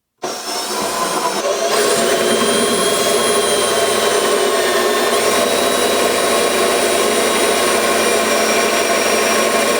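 Power drill spinning a 5/8-inch Forstner bit, boring a shallow recess into wood for a figure-8 tabletop fastener. A steady motor whine starts right away and holds without a break, with slight shifts in pitch as the bit cuts.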